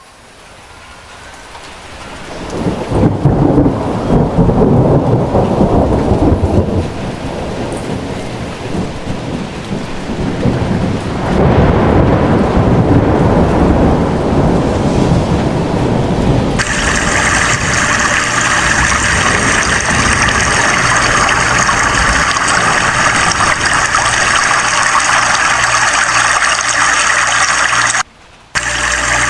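Heavy rain pouring onto wet pavement, with loud, deep rumbling rushing water from about three seconds in that eases and swells again. From about halfway through comes the steady rush of a brown river in flood.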